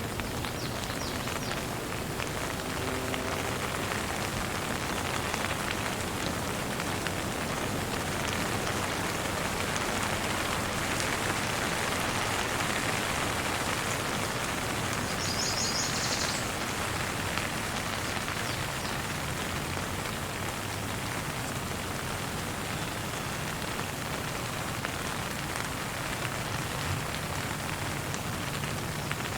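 Steady, even rainfall.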